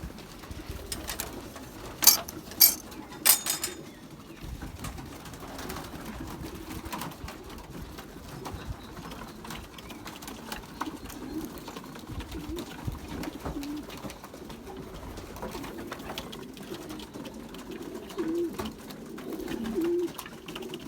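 Racing pigeons cooing in the loft, low soft calls that grow more frequent near the end. A few loud sharp clacks come about two to three and a half seconds in.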